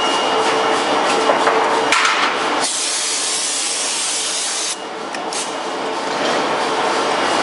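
Forging-shop machinery noise at a forging press: a steady machine hum with a couple of metal knocks. After about two and a half seconds it changes abruptly to a steady hiss that dips briefly around the middle.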